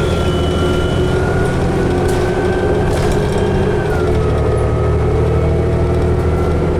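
2011 New Flyer D60LFR articulated diesel bus under way, heard from inside the cabin: a steady low engine drone with a thin high whine that drops in pitch twice, at the start and about four seconds in.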